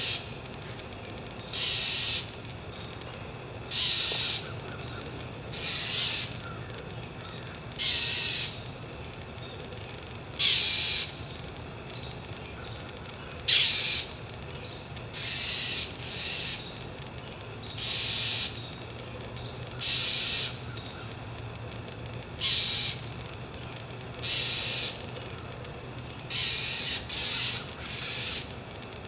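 Northern mockingbird giving harsh, raspy scolding calls about every two seconds, mobbing a perched barred owl.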